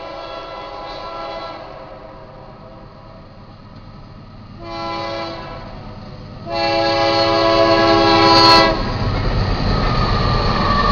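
GE Dash 9-44CW diesel locomotive's air horn sounding the grade-crossing signal. A long blast fades out about a second and a half in, a short blast comes around the middle, then a louder long blast cuts off near the end. A heavy low rumble of the locomotives passing follows the last blast.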